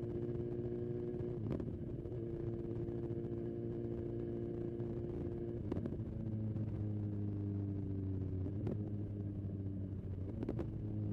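BMW S1000XR's inline-four engine running at low revs under way, its note holding nearly steady and easing slightly downward, with a few short sharp clicks every few seconds.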